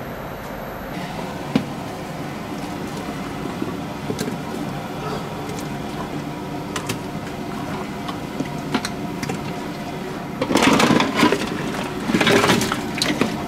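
A steel bowl of boiled pork bones tipped into a large pot of steaming stock: two loud rushes of clattering and splashing near the end, over a steady background with scattered light clinks.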